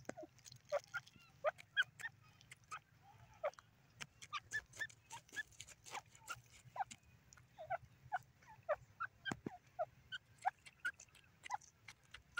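Grey francolin giving soft, scattered clucking notes while it scratches in loose soil, with faint ticks and scrapes from its feet in the dirt.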